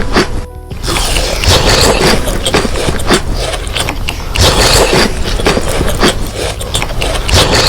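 Close-up eating sounds: a dense run of crunching, crackling and scraping as food is chewed and handled near the microphone, with a brief lull about half a second in.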